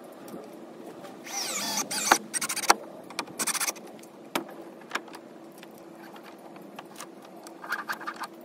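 Cordless drill driving screws into a wooden board: a short run of the motor with a whine that glides in pitch about a second in, a quick stuttering burst, and another short run about three and a half seconds in, followed by a few scattered knocks.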